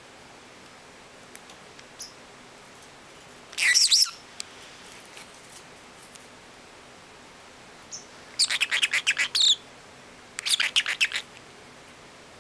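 Pacific parrotlet chirping: one short high call about three and a half seconds in, then two quick runs of rapid, high chirps later on.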